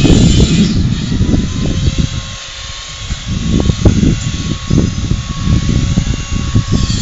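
Gusty low rumbling of wind buffeting the microphone, with a faint steady hum from about a second in until near the end.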